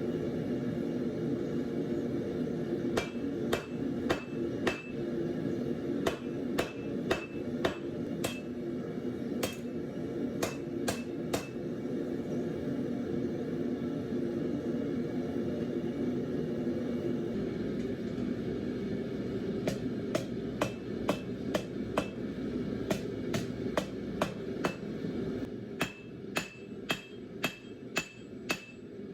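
Blacksmith's hammer (a reworked 3 lb Harbor Freight hammer) striking a piece of round bar on the anvil, in irregular runs of sharp, ringing blows, about one to two a second, starting a few seconds in. A steady low rumble from the lit forge runs underneath and drops away near the end.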